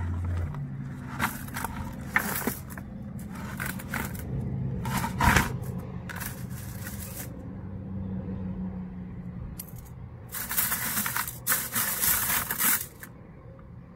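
Dry mesquite pods rustling and clattering against each other and the plastic bucket as a hand rummages through them. It comes in several short bursts, the longest and loudest near the end.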